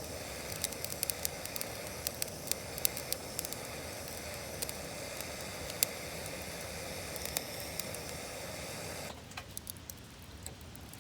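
Campfire hissing steadily with scattered sharp crackles as it catches on fire starter. About 9 s in the hiss drops away suddenly, leaving a few faint crackles.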